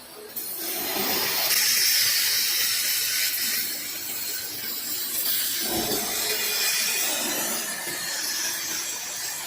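CNC tube laser cutting machine cutting, giving a steady high hiss that starts about half a second in.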